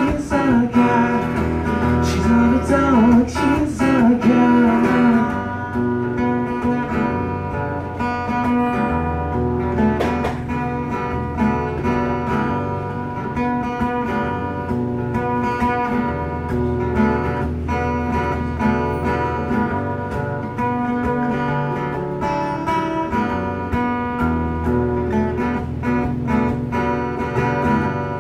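Acoustic guitar strummed steadily in an instrumental break. A held sung note rings over it and fades out about five seconds in, leaving the guitar alone.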